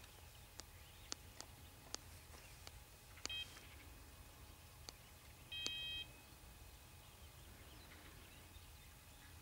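Two short electronic beeps, the first brief about three seconds in and the second about half a second long near six seconds, over near silence with a few faint clicks.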